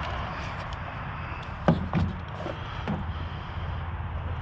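A few light knocks and clicks from an object being handled, over a steady background rumble.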